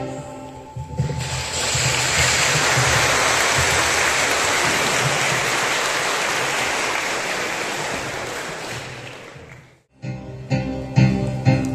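Audience applauding. The last notes of the song die away at the start, the clapping swells about a second in and fades out after about nine seconds, and piano notes begin near the end.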